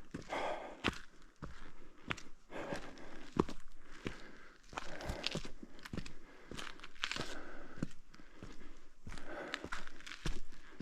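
A hiker's footsteps on a mountain trail: an irregular series of steps with scuffs and crunches.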